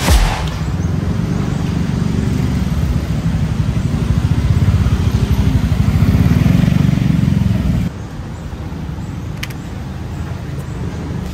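Road traffic: a motor vehicle engine running close by with a low pulsing rumble, swelling and then dropping off suddenly about eight seconds in, leaving lighter steady street noise and a single click.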